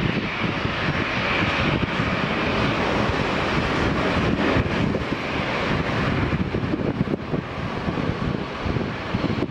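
Jet engine noise from a Fokker 100's two Rolls-Royce Tay turbofans on its landing rollout, a steady hiss that eases after about six seconds. Heavy wind buffeting on the microphone runs under it.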